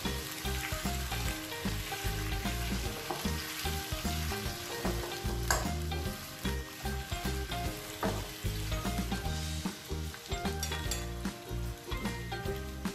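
Potato slices sizzling as they fry in oil in a nonstick pan, stirred with a slotted spatula that scrapes and clicks against the pan.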